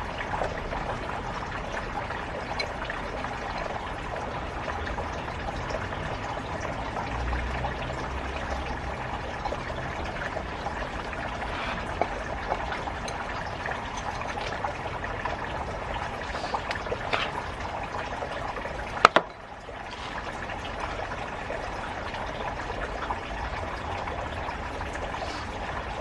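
Water running and trickling steadily, with small ticks. A single sharp click about 19 seconds in, after which the sound is briefly lower.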